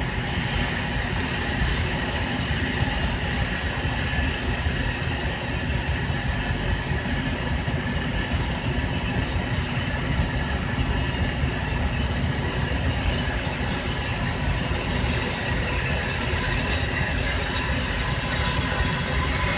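Electric target carrier running steadily as it brings a paper target back along its overhead track, a constant motor whine with no shots.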